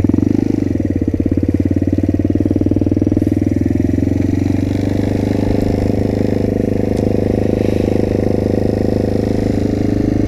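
Motrac M5 minibike's small single-cylinder engine running under way at steady cruising speed. Its pitch shifts in the first second or two, then holds steady.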